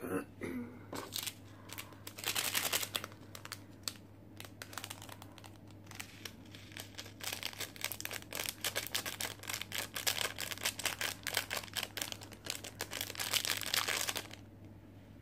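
Small plastic seasoning packets of a cup ramen crinkling as they are torn open and shaken out over the noodles: a short burst about two seconds in, then a long stretch of dense crinkling from about seven seconds in until near the end.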